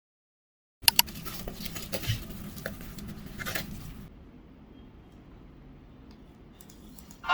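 Small handling sounds: a run of light clicks and rustles for about three seconds, starting a moment in, then faint room tone.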